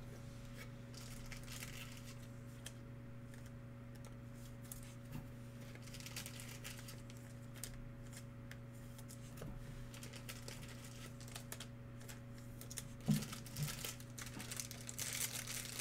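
Plastic crinkling and rustling as trading cards and their plastic sleeves and wrappers are handled, with a couple of light knocks about thirteen seconds in and a denser crinkle near the end. A steady low electrical hum runs underneath.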